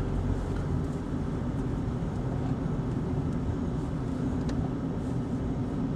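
Automatic Toyota Yaris heard from inside the cabin while driving: a steady low engine hum with tyre and road noise.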